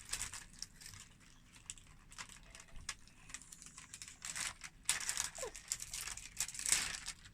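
Crinkling and rustling of toy packaging being handled, in irregular bursts that are busiest and loudest in the second half.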